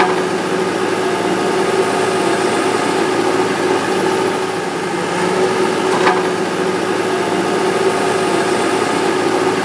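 An engine idling steadily, a constant hum with no change in speed.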